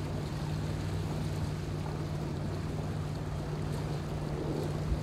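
A boat's engine running steadily underway, a constant low hum, with water washing alongside.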